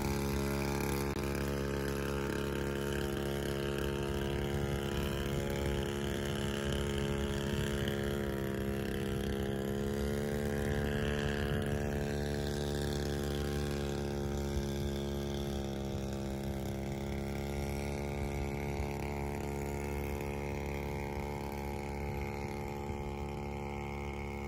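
Small outboard motor on an inflatable dinghy running at a steady speed, growing slightly fainter toward the end as the dinghy heads away.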